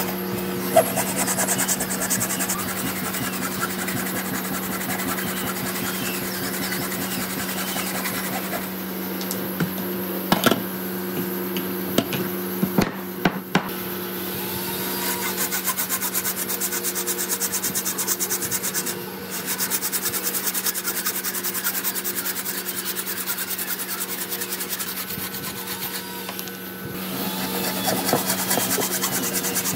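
Hand saw with a long narrow blade cutting by hand through an old hardwood railway sleeper, a fast, steady rasp of back-and-forth strokes. A few sharp knocks come between about ten and fourteen seconds in, over a steady low hum.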